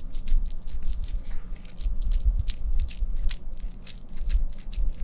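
Hands squeezing and pressing minced beef kabob mixture onto a wooden spoon handle: a run of quick, irregular wet clicks and squelches.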